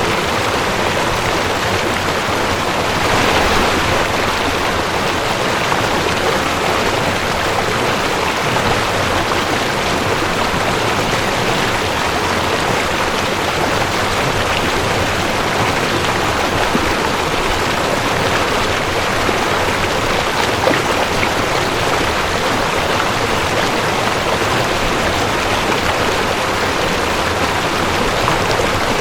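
Cold mountain stream rushing over rocks, a steady dense water noise that swells slightly about three seconds in.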